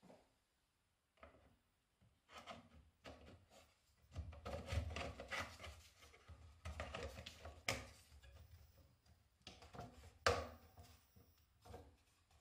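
Hard plastic protective wheel covers of a Scheppach MSB1100 metal band saw being handled and fitted back into place: rubbing and scraping with scattered small clicks and knocks. There is a sharper knock a little past halfway and another near the end.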